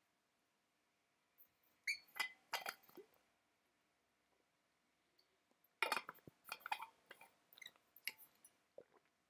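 Scattered sharp clicks from a computer keyboard and mouse in two clusters: a few about two seconds in, then a longer run of clicks from about six seconds in.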